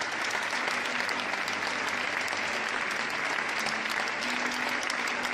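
Large crowd applauding steadily, with a faint held note coming in about four seconds in.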